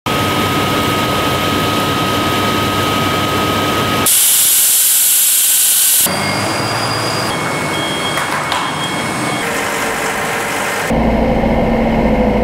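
Heavy machinery noise that changes abruptly every few seconds. It starts as steady mechanical running with a thin high tone. About four seconds in comes two seconds of loud hiss, then more machine noise, and near the end the low diesel rumble of a Terex excavator.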